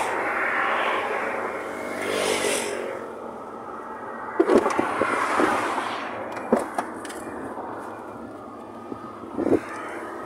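Traffic passing on a highway, cars going by in swells of road noise. A few sharp knocks of things being handled in a car about halfway through and near the end.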